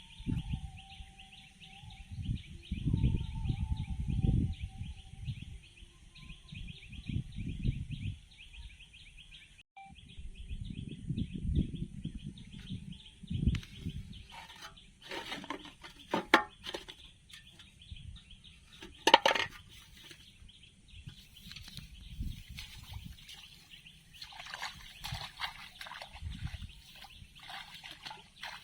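Rural outdoor ambience: a steady, rapidly pulsing high chirring chorus of insects or birds, with irregular low rustling thumps from handling nearby.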